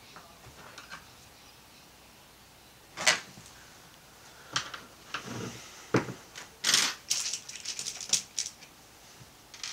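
Hands handling a small 3D-printed extruder assembly and its nuts on a wooden bench: scattered clicks and knocks of small parts. A sharp click comes about three seconds in, then a busy run of clicks and rustling about halfway through, as an arm passes close by.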